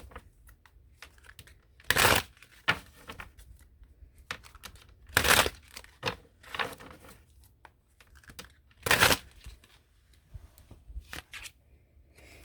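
A deck of tarot cards being shuffled by hand: three short, loud riffling bursts a few seconds apart, with softer card rustles and taps between them.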